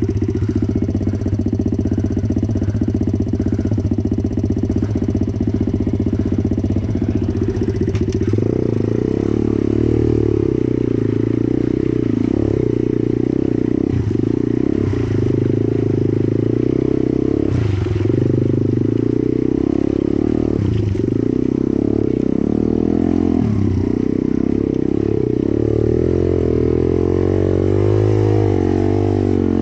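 Pit bike's single-cylinder four-stroke engine running while riding, loud throughout. For the first several seconds it runs lower and steadier, then from about eight seconds in it runs louder under throttle, with repeated brief dips and pick-ups in revs.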